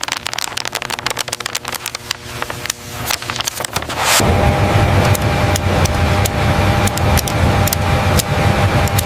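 Rapid crackling clicks, then a loud, steady machine rumble with a faint hum starts abruptly about four seconds in.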